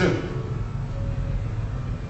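A low, steady rumble of background noise, with a faint short tone about a second in.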